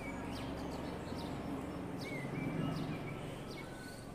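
Outdoor street ambience: a steady low hum of city activity, with short high bird chirps scattered through it.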